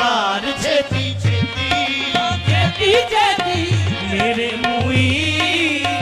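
Qawwali music: a tabla beat under a continuous melody line.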